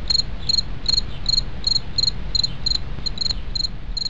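Crickets chirping steadily, about three short chirps a second, over a low steady rumble.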